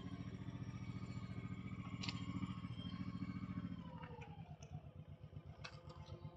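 Honda Shadow Sabre 1100 V-twin motorcycle engine running at low road speed with a steady, pulsing low beat, easing off a little about four seconds in.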